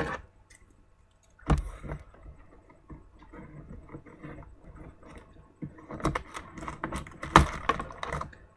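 A sealed trading card hobby box being opened and its packs handled: rustling and crinkling of packaging with scattered clicks. A sharp click comes about a second and a half in and a louder knock about seven seconds in.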